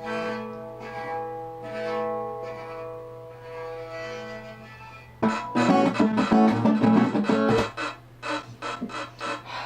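String instruments playing: held, bowed-sounding notes on a violin. About five seconds in, loud fast strumming and plucked notes on guitar come in, then break into short separate plucks near the end.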